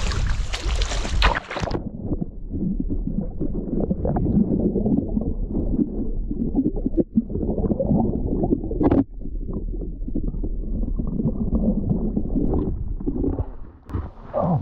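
River water splashing for about two seconds. It then turns suddenly to a muffled, low rumbling and gurgling of water with no treble, broken by one sharp click about nine seconds in.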